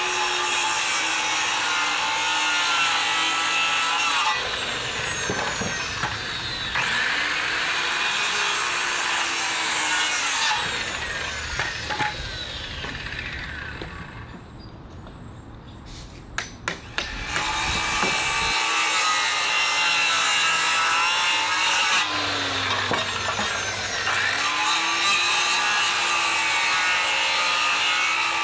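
Power saw cutting notches into a wooden 4x4 post, to half its thickness, in several separate passes. In each pass the motor's whine dips as the blade bites into the wood. There is a quieter pause with a few sharp clicks about midway.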